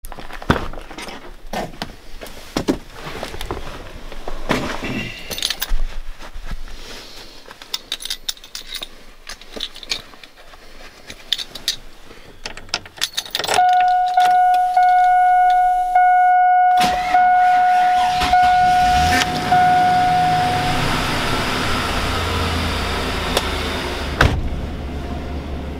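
Truck door handle and latch clicking and keys jangling, then a steady warning chime sounding in short repeated pulses. About 18 seconds in, the truck engine cranks briefly and catches on a cold start after sitting in sub-zero cold, then settles into a steady idle while the chime stops a few seconds later.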